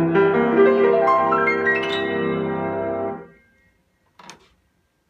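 Rebuilt Yamaha G5 grand piano, with new hammers and strings, played in rich sustained chords with a line of notes climbing upward; the playing stops about three seconds in and the sound dies away.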